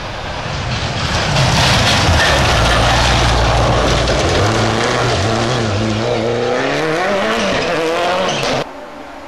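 Subaru Impreza rally car's turbocharged flat-four coming through a gravel hairpin, with a hiss of spraying gravel and tyre scrub. It then revs hard as it accelerates away, its pitch climbing again and again. The sound cuts off suddenly near the end.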